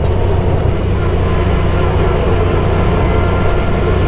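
Off-road vehicle engine running at a steady, even pace on a trail ride, a loud low drone.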